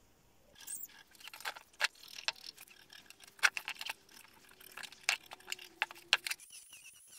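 Irregular clicks and knocks of a rusty steel pipe and a paint marker on a wooden tabletop as the pipe is handled, turned and marked, with a faint steady hum under them. Near the end the knocking stops and a faint wavering high tone begins.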